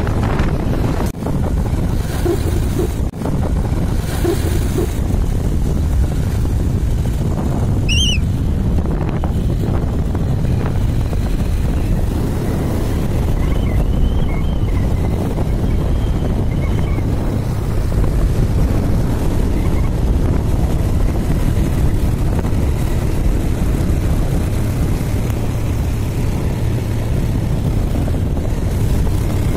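Steady low rumble of a moving vehicle on the road, with wind buffeting the microphone. A brief high chirp sounds about eight seconds in.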